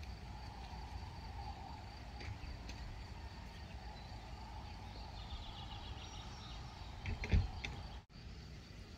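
Open-meadow ambience: a steady high insect song over a low rumble, with a single loud thump about seven seconds in and a brief sudden dropout just after.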